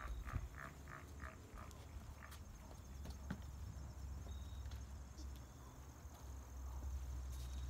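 Quick footsteps on a paved driveway, about three a second, fading out in the first couple of seconds, then a faint low rumble.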